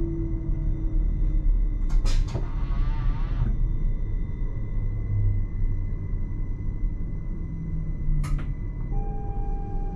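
Electric train running, heard inside the driver's cab: a steady low rumble with faint drive tones that shift in pitch, broken by two short hisses, one about two seconds in that trails off over a second or so and another near the end.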